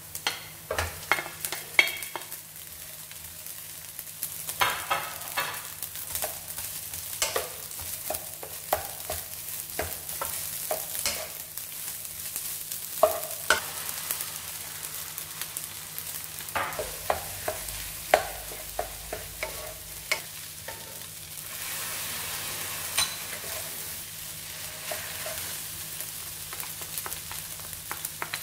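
Wooden spatula stirring and scraping rice around a nonstick wok, with sharp knocks and scrapes against the pan over the sizzle of hot oil. About two-thirds of the way through, the knocks thin out and a steadier frying sizzle takes over.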